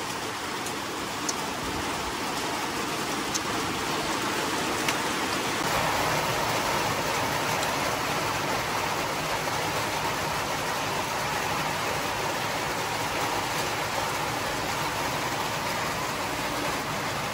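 Steady rain, an even patter with a few sharp drop ticks in the first seconds; about five seconds in it grows a little louder and brighter.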